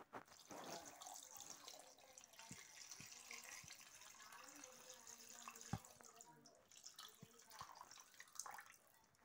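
Faint sound of water pouring in a thin stream into a metal bowl of raw chicken pieces, filling it to soak the chicken, with a few light clicks along the way.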